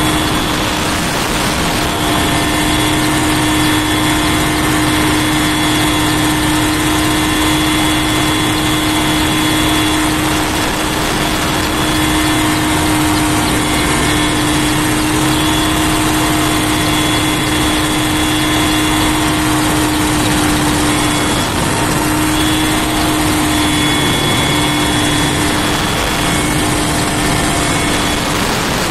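Firefighting helicopter in flight, heard from inside its cabin: a loud, steady engine and rotor noise with a constant hum running under a wide rushing noise.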